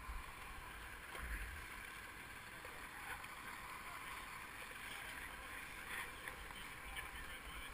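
Wind buffeting a helmet-mounted camera's microphone in uneven low gusts, over a steady hiss and a few faint knocks.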